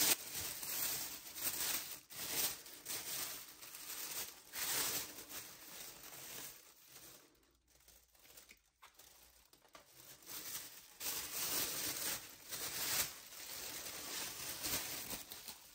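Tissue paper rustling and crinkling as it is handled and pulled off a wrapped keyboard, in uneven surges with a quieter pause midway.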